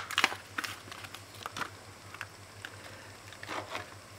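Light, irregular taps and clicks of baking ingredients and kitchen containers being handled, over a steady low hum.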